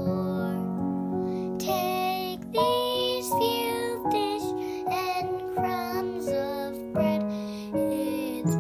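A young boy singing a song in short phrases, accompanied by piano chords played on a Yamaha piano.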